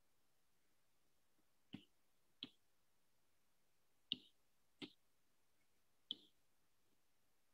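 Five light, sharp clicks on an iPad and Apple Pencil in near silence, in two pairs and then one, while the Apple Pencil is being reconnected.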